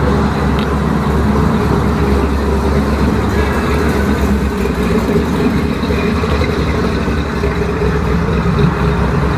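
A car engine running steadily and loudly, deep and low, with no change in speed.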